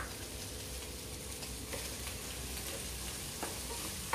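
Ground spice paste sizzling steadily as it sautés in a little cooking oil in a pan, with a few faint clicks.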